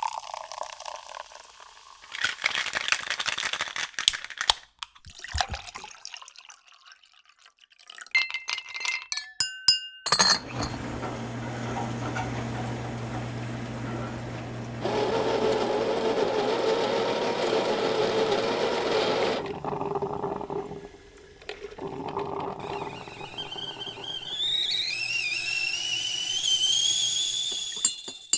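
A run of separate kitchen sound effects: glass clinks with short ringing tones, then a long steady appliance hum with a rushing noise over it, then a whistle that climbs in pitch in steps near the end.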